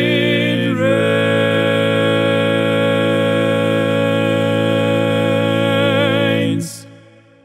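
Male barbershop voices singing the final word 'rains' of the tag a cappella, one singer multi-tracked on the lead, baritone and bass parts with the tenor part left out for a sing-along. The chord shifts about a second in, is held with a slight waver, then cuts off near the end and fades away.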